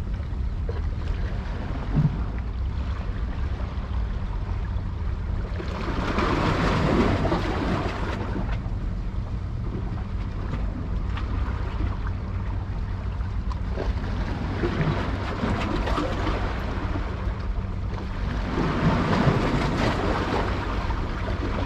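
Wind buffeting the microphone over the wash of waves, with a steady low rumble underneath. The wash swells up twice, about a third of the way in and again near the end.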